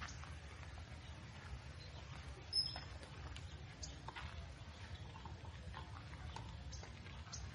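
Footsteps on a park trail with faint scattered ticks and a steady low rumble, and one short high chirp about two and a half seconds in, the loudest sound.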